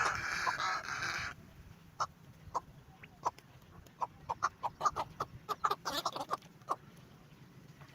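Birds giving many short, sharp calls at irregular intervals, after a loud, rough burst of noise lasting a little over a second at the start.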